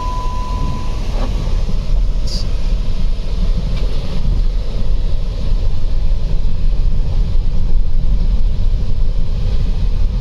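Steady road and wind rumble of a car being driven, heard from inside, with wind on the microphone. A steady electronic beep sounds for about a second at the start.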